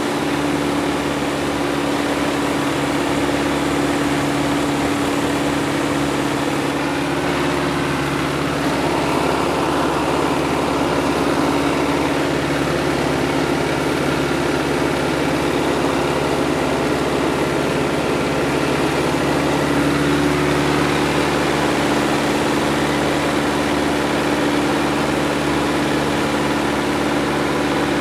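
Piper Cub's engine and propeller running in a steady drone in cruise, heard from inside the cabin with wind rushing past the open side. The drone's tone shifts a little about a third of the way in and settles again near the two-thirds mark.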